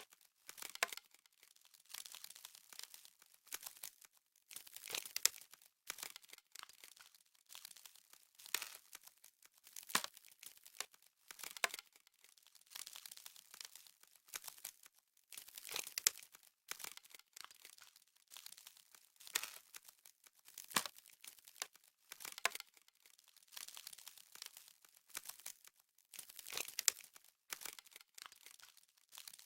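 Frost sound effect: a dry, icy crackling and crinkling that comes in uneven clusters every second or two, with short quiet gaps between them.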